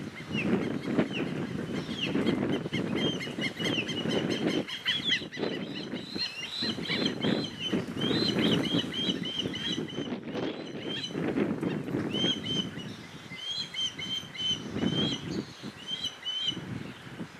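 Osprey fledgling begging for food: runs of short, high whistled chirps, several a second, broken by brief pauses. A gusty low rumble lies underneath.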